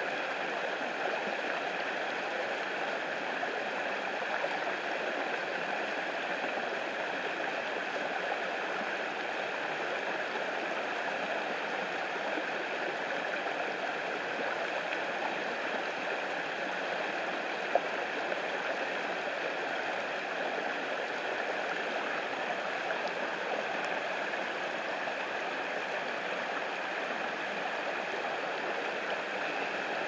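Shallow creek water running steadily over a flat rock slab in a small cascade, an even rushing babble. A single brief click a little past halfway.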